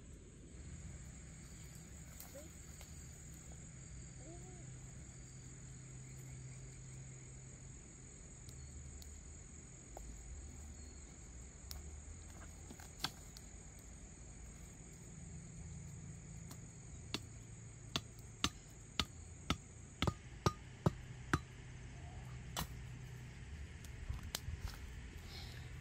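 Insects drone steadily on one high note, which stops about twenty seconds in. Near the end comes a run of sharp knocks, about two a second, with a few more shortly after.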